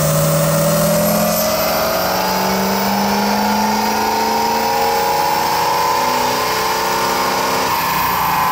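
Ford 6.0 Power Stroke V8 turbodiesel making a dyno pull under load, its pitch climbing steadily for about seven seconds, then falling away near the end as the pull finishes.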